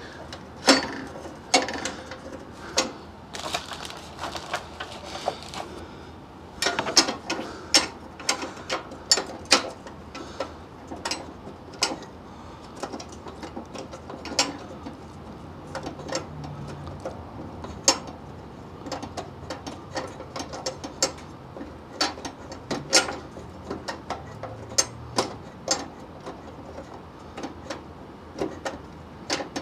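Irregular small metallic clicks and clinks of bolts being started by hand into the welded-in nuts of a Jeep TJ's grille mounts.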